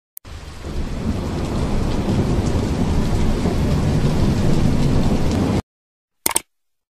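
Thunder-and-rain sound effect: a dense, steady noise with low rumbling that builds over the first second and cuts off abruptly about five and a half seconds in. A short sharp click comes shortly after.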